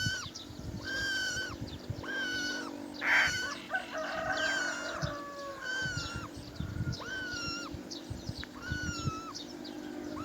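Roller calling over and over, about once a second: short, even calls that drop in pitch at the end. A harsher call comes about three seconds in, and a falling call a little after.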